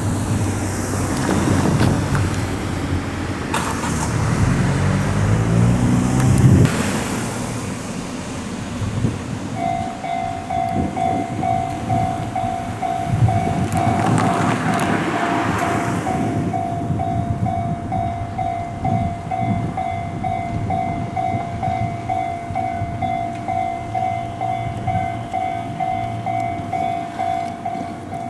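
A train passes loudly in the first several seconds, with a rising whine. About nine seconds in, a railroad crossing alarm starts ringing a steady, even tone repeated about twice a second, while another vehicle passes by.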